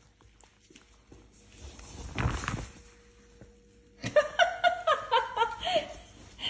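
A woman laughing hard in a fast string of 'ha-ha-ha' from about four seconds in. Before it, a brief rustling noise about two seconds in.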